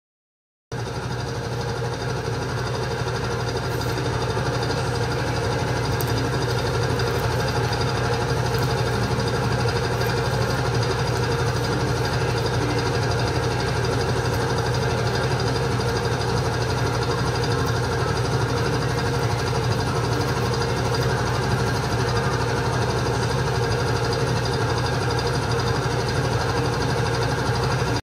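Steady mechanical hum of a running machine, with a constant low drone that does not change.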